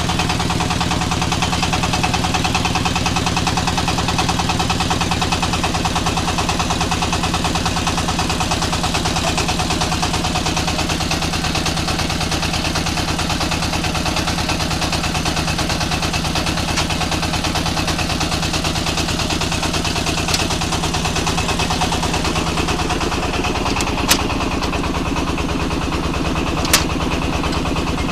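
Engine-driven red brick moulding machine running steadily with a fast, even pulse, with a few sharp clicks in the last few seconds.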